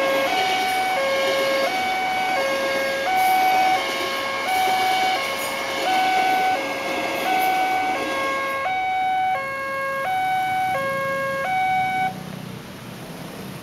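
A level-crossing warning alarm switching between a lower and a higher electronic tone about every 0.8 s, over the running noise of an ex-Tokyo Metro 6000 series electric commuter train passing. The alarm cuts off suddenly about twelve seconds in, once the train has cleared the crossing.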